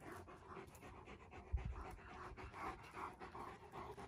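Dogs panting fast and hard, about three breaths a second, worn out from running. A single low thump about one and a half seconds in.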